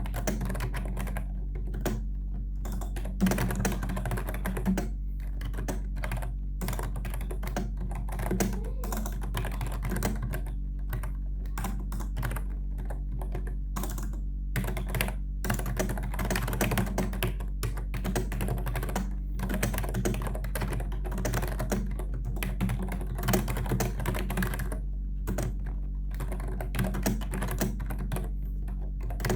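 Continuous typing on a Logitech K120 membrane keyboard: rapid runs of soft key clicks with short pauses between bursts, over a steady low hum.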